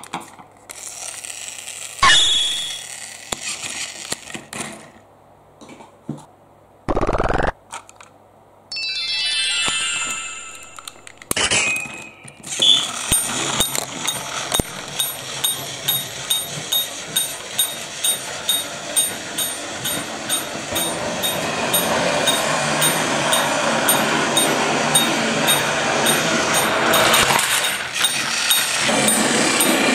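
Battery-powered Plarail toy train running on plastic track: a steady motor-and-gear buzz with a regular clicking about twice a second, starting about halfway through. Before that, a few short knocks and rattles of plastic toy engines being handled, and a brief falling electronic jingle.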